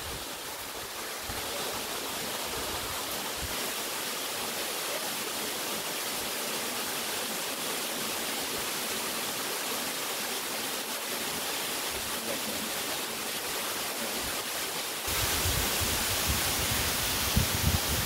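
A waterfall pouring down stepped rock into a pool, a steady, even rush of falling water. About fifteen seconds in, it gets louder and an uneven low rumble joins it.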